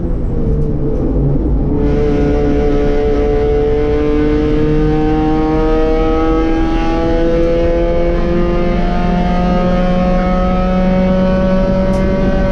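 B-Spec race car's four-cylinder engine pulling hard in one gear, its note climbing slowly and steadily for about ten seconds.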